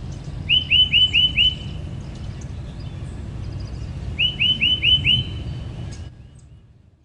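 A bird calling in two quick runs of five sharp, down-curving chirps, one about half a second in and one about four seconds in, with fainter bird calls higher up. A low steady rumble sits underneath, and everything fades out near the end.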